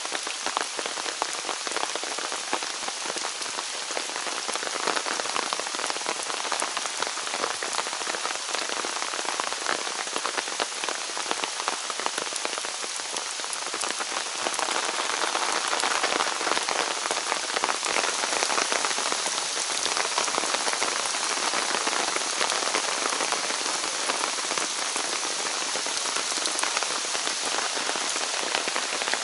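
Steady rain falling in a forest, a continuous hiss with many single drops ticking through it; it grows a little louder about halfway through.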